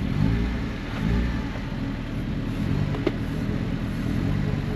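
Off-road 4x4 engine running under load, revving up and easing off several times in short bursts of throttle, with a sharp knock about three seconds in.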